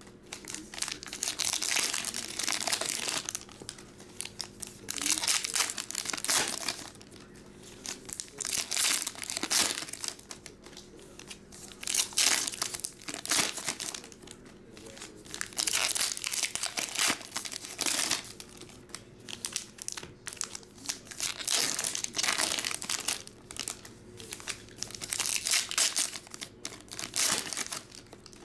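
Foil card-pack wrappers of 2022 Donruss baseball packs being torn open and crinkled by hand, in repeated bursts every second or two.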